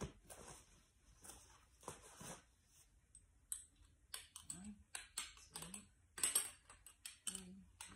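Light clicks and clacks of a lightweight folding camp chair's metal frame poles being handled and fitted together, coming in quick irregular bunches, busier in the second half, with a few short hums of voice.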